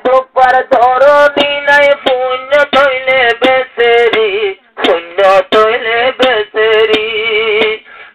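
Male voice singing a Rohingya devotional tarana in long ornamented phrases, with short breaths between lines about four and a half seconds in and just before the end.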